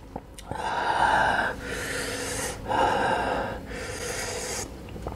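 A man breathing hard through his mouth, about four long breaths in and out, roughly one a second, drawing air over a mouth burning from an extremely hot chili chip.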